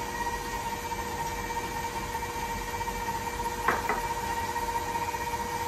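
Electric stand mixer running at a steady speed with an even whine, its paddle beating eggs into creamed butter and sugar for cookie dough. Two light clicks come about two-thirds of the way through, and right at the end the motor is switched off and its whine falls away.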